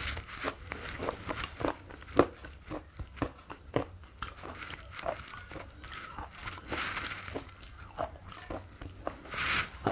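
Close-miked chewing of slate pencil: irregular, crisp crunches and clicks, a few a second, as the brittle pieces are ground between the teeth.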